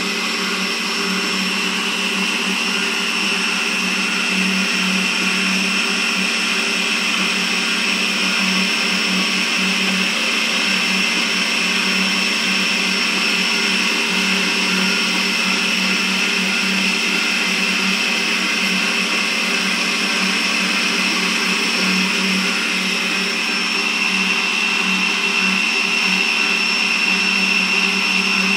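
Kogan stand mixer's electric motor running steadily with a constant hum and whine, its higher whine growing a little stronger in the last few seconds.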